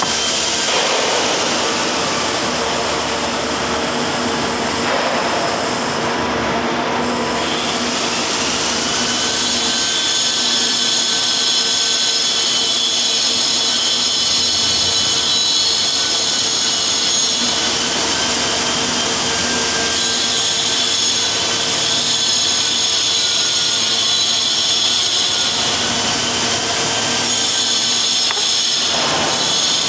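A machine running steadily: a continuous whine with several high tones over a hiss, holding an even level.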